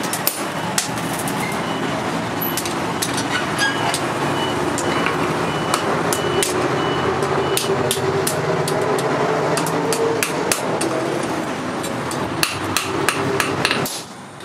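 Hammer blows ringing on red-hot steel on an anvil, struck at an uneven pace, over a steady mechanical drone that cuts off suddenly near the end.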